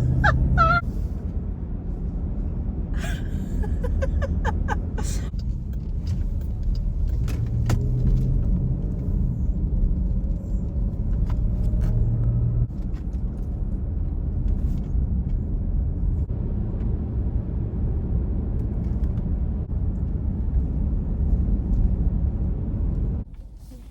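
Road and engine noise inside a Jeep Grand Cherokee's cabin while driving, a steady low rumble with a few light clicks now and then. The rumble cuts off suddenly near the end.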